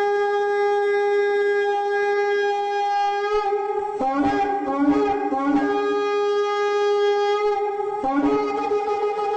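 A wind instrument blown in long, steady held notes. Between about four and six seconds in, and briefly again near eight seconds, the note breaks and wavers before settling back.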